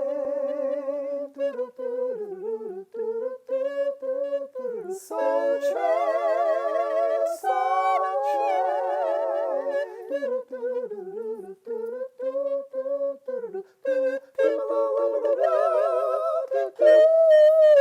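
Wordless a cappella singing: layered, multitracked voices hum and sing a melody in close harmony with vibrato, without instruments or percussion. A single line gives way to several harmony parts about five seconds in, thins out midway, and swells to a fuller, louder chord near the end.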